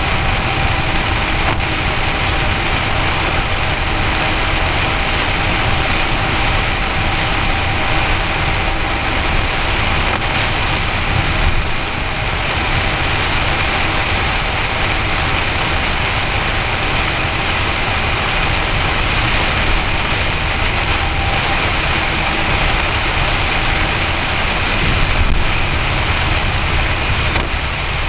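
Steady engine and wet-road tyre noise heard inside a vehicle driving through a heavy rainstorm: a low rumble under an even hiss, unchanging throughout.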